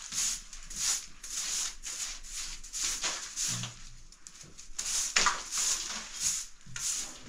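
Rhythmic swishing strokes, about two to three a second, pausing briefly midway, with a few faint low thumps.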